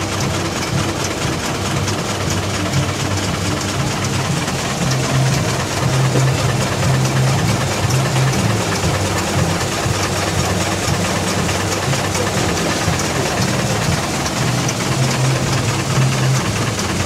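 Small vertical single-cylinder steam engine running fast on live steam for the first time, its exhaust steam hissing with a rapid, even beat over a steady low hum.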